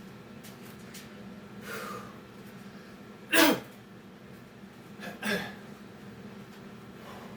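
A man breathing hard from Navy SEAL burpee exercise, with two loud voiced exhales, each falling in pitch, about three and five seconds in, and a fainter one earlier.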